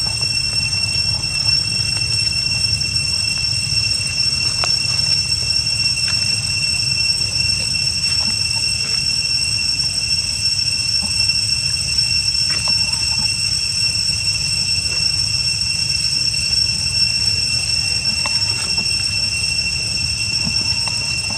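Steady, high-pitched whine of cicadas holding two constant tones, over a steady low rumble.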